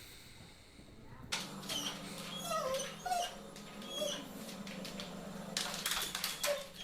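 A pet animal giving several short, high, squeaky cries that slide up and down in pitch, over a steady low hum.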